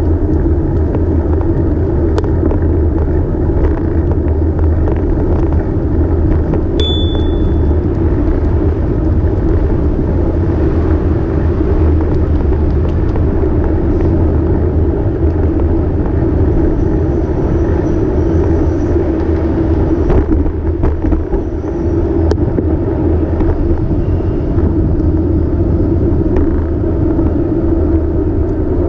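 Steady rumble of a bicycle ride heard from a bike-mounted camera: wind and road noise on the microphone, with city traffic around. A brief high chirp sounds once about seven seconds in.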